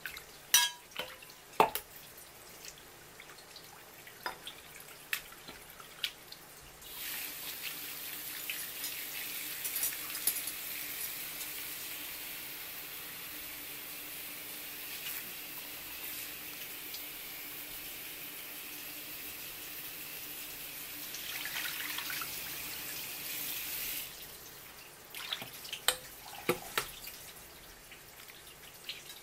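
Kitchen tap running through a flexible hose into a stainless steel bowl of tuna eyes. A few sharp splashes and knocks come first, then a steady stream of water pours into the bowl for about seventeen seconds and stops suddenly. Wet splashing and clicks follow as hands rub the eyes in the bowl.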